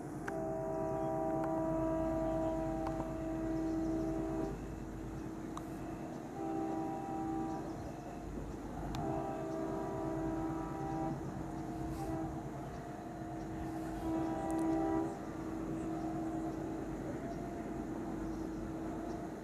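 Indian Railways WDM-3D ALCO diesel locomotive sounding its horn in about five long blasts with short gaps between them, the first about four seconds long and the last fainter, over the low chugging of its diesel engine.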